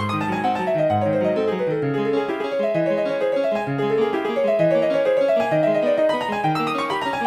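Polyphonic MIDI ringtone played with the ZTE R221 phone's soundfont: a piano-like keyboard tune of quick falling runs of notes over a low bass line.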